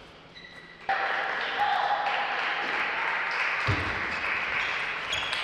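Table tennis rally: a few light ticks of the ball off bats and table, with short shoe squeaks on the court floor. About a second in, a louder, steady rushing noise starts suddenly and carries on, with a dull thud near the end.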